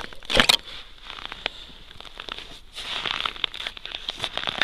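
Crunching and crackling of frost-covered new river ice underfoot, close by: a short crisp crunch about half a second in, scattered clicks, then grainy crackling over the last couple of seconds. The ice froze only overnight and is thin.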